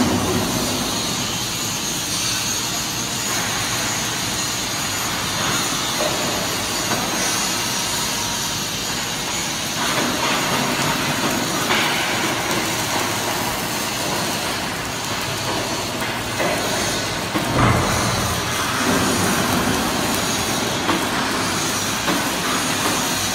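Pipe longitudinal seam welding machine and workshop machinery running: a steady hissing, rumbling noise with a brief louder thump about two-thirds of the way through.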